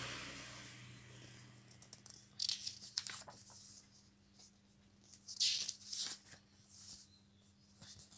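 Paper pages of a picture book being turned by hand: a few short swishing rustles, the two loudest about two and a half and five and a half seconds in.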